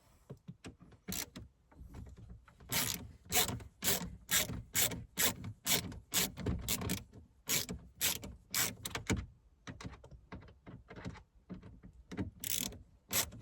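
Screwdriver backing out a dashboard trim screw on a Volkswagen Golf Mk5, clicking with each turning stroke, about two clicks a second for much of the time and more unevenly near the end.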